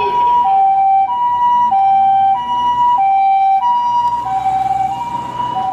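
Toy ambulance's electronic two-tone hi-lo siren, switching between a higher and a lower tone about every two-thirds of a second. It cuts off abruptly at the end.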